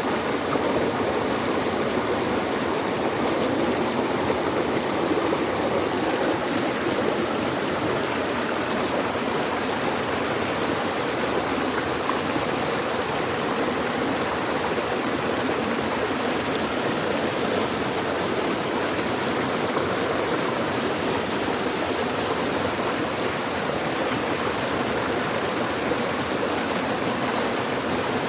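Water flowing steadily in a stream, an unbroken rushing noise.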